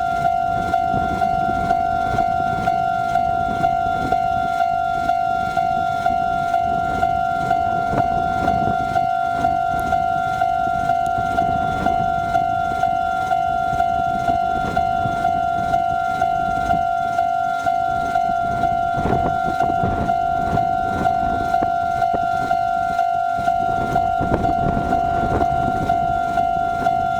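Railway level-crossing warning bell ringing: one high electronic tone struck over and over in a quick, steady rhythm.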